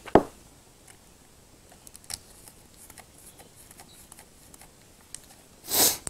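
Hands handling electrical wires and twisting a plastic wire nut onto the neutral wires: faint scattered clicks and rustles, with a sharp tap at the start and a brief, louder rustle near the end.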